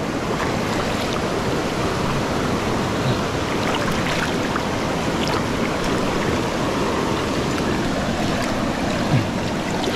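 Shallow rocky river rushing over stones close by, a steady even rush of flowing water, with one short knock about nine seconds in.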